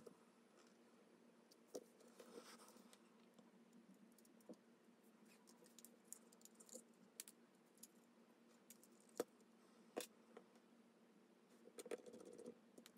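Faint scattered clicks and taps of small tools and parts being handled, over a steady low hum. The sharpest taps come about nine and ten seconds in.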